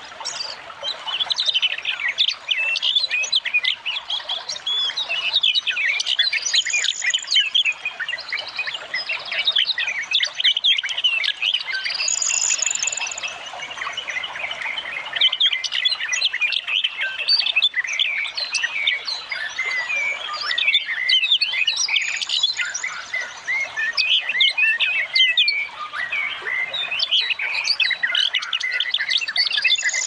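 Dense chorus of wild songbirds, many overlapping chirps, twitters and trills.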